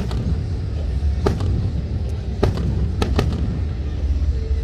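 Fireworks going off at a distance: several sharp bangs, irregularly spaced about a second apart, two of them close together past the middle, over a steady low rumble.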